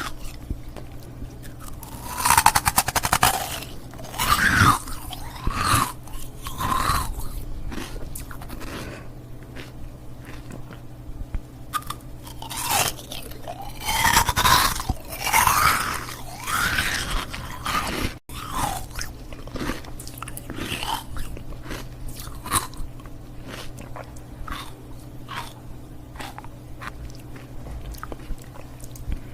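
Ice cubes being bitten and chewed up close, crunching and cracking in repeated bursts, with louder clusters of crunches separated by stretches of quieter chewing clicks.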